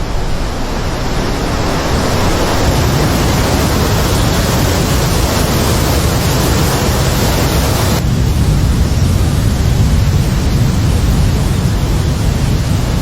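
Steady, loud rushing of water. About eight seconds in, the sound changes and loses some of its hiss.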